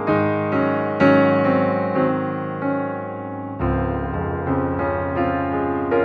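Background piano music, notes struck at an easy pace, with a new lower chord coming in about three and a half seconds in.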